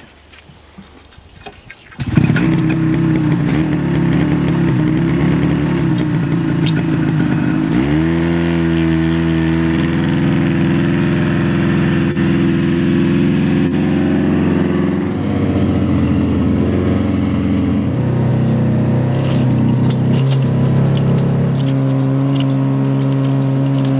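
A snowmobile engine starts about two seconds in and idles unevenly. Near eight seconds it revs up and then runs steadily, changing speed a few times, as the snowmobile hauls a trail-grooming drag.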